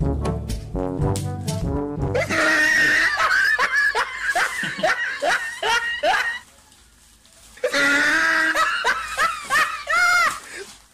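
Brass intro music ends about two seconds in, followed by high-pitched laughing in two bouts with a short silence between them.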